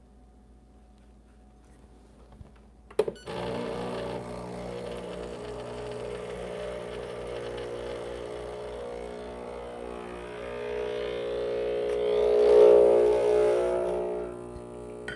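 Breville Barista Express espresso machine's vibratory pump switching on with a click about three seconds in, then buzzing steadily as it pushes water through the coffee puck. The buzz grows louder near the end as the first espresso starts to drip from the bottomless portafilter.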